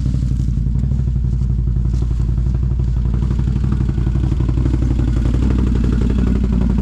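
Dirt bike engine running steadily as it is ridden along a trail, with a fast even firing pulse and a slight change in engine pitch near the end.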